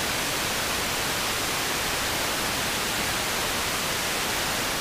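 Raw, unfiltered white noise from an Erica Synths Black Digital Noise Eurorack module: a steady hiss spread evenly across the whole range from low to high, with no tone in it.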